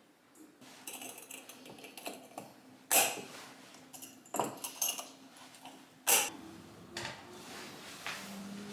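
Glass clip-top jars with wire clasps being handled and set down: a series of small knocks and clinks of glass and metal, with two sharp clinks about three seconds in and about six seconds in as a jar is put down on a wire shelf.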